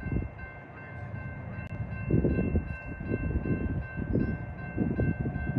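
Railroad grade-crossing warning bell ringing steadily as the crossing lights flash, warning of an oncoming train. Underneath is an uneven low rumble that grows louder about two seconds in.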